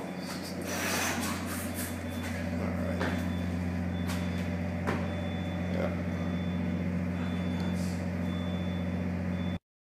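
Steady low drone of running machinery, with a faint high beep repeating about once a second and a few sharp knocks of footsteps. It cuts off suddenly near the end.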